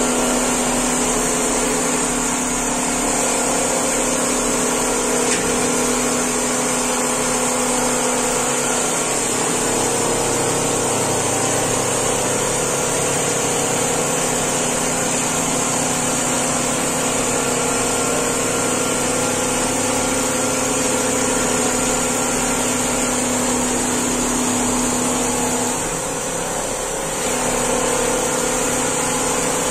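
Single-head computerized quilting machine stitching, its needle head and gantry drive running with a steady mechanical hum and a high whine, dipping briefly near the end.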